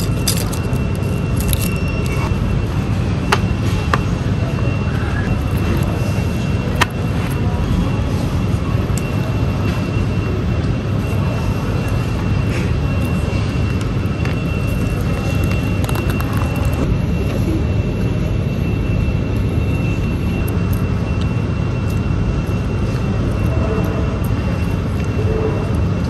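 Steady drone of a jet airliner cabin, engine and air-conditioning noise with a thin constant whine above it, and a couple of faint clicks.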